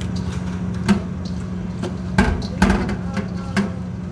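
Raw pork slices being rubbed with seasoning by hand in a stainless steel bowl, the meat and hands knocking against the steel a few times, over a steady low background hum.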